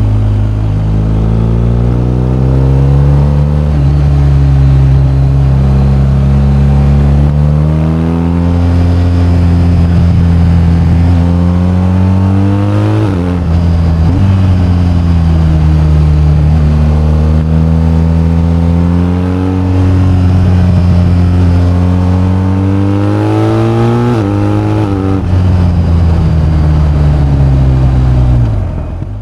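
BMW R1250GS boxer-twin engine under way. It rises and falls through the revs, and its pitch steps down at each of several gear changes, then drops away abruptly at the very end.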